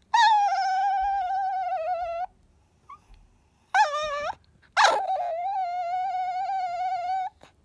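A Chihuahua whining for a ball it can't reach, begging to have it fetched. It gives a long, high, wavering whine, then a short rising cry, then a second long whine.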